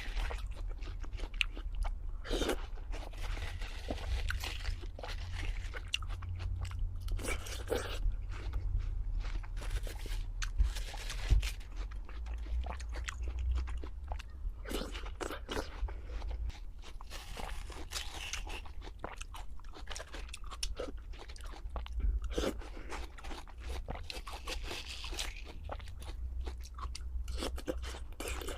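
Close-miked crunching and chewing of crisp food, with repeated bites and crackles throughout.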